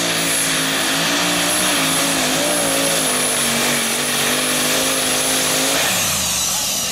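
Two-wheel-drive pulling truck's engine running flat out under load while dragging a weight-transfer sled, loud and steady with a high whine above it. About six seconds in the engine note drops sharply and the whine falls away with it as the throttle comes off at the end of the pull.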